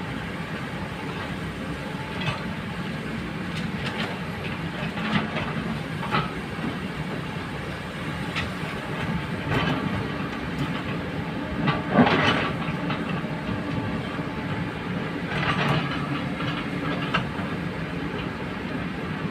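Hydraulic excavator's diesel engine running steadily, with irregular clanks and scraping sounds throughout. The loudest clank comes about twelve seconds in.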